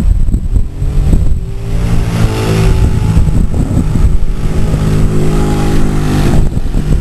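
Motorcycle engine passing on the street, its pitch rising about a second in and then holding steady before it fades near the end, over a steady low rumble.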